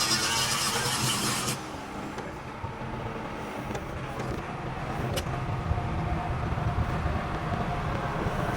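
An engine running with a steady low rumble. A loud hiss over it cuts off suddenly about a second and a half in, leaving the rumble with a few light clicks.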